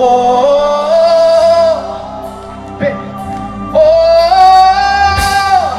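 Live gospel worship song with band accompaniment: a singer holds a long sung 'oh' twice, the second higher, over sustained keyboard chords and bass.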